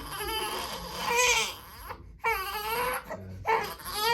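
Baby crying in a string of wavering wails broken by short pauses.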